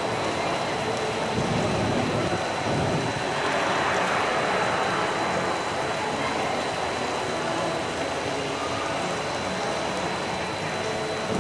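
Artificial indoor rain falling steadily onto a shallow pool, an even hiss of drizzle on water, with a low rumble about two seconds in.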